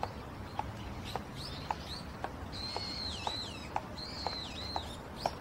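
Birds chirping in short high calls, some held a little longer, over steady footsteps on pavement at about two steps a second.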